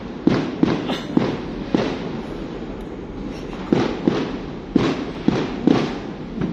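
Fireworks going off in an irregular string of sharp bangs, each trailing off in a short echo, with a lull of about two seconds in the middle.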